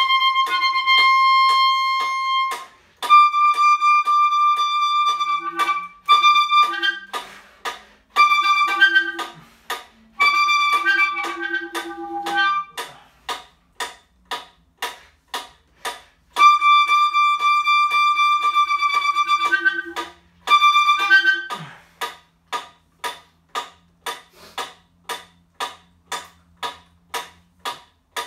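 Clarinet playing tongued notes: each pitch is repeated in short attacks at a steady pulse of about three to four a second, the line stepping among a few high notes, with brief pauses between phrases.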